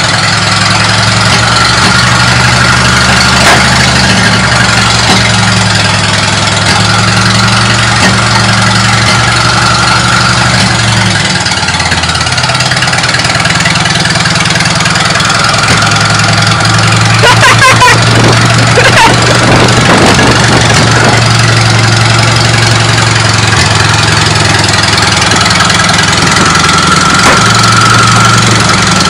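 Car engine idling steadily, with a short unsteady stretch a little past the middle.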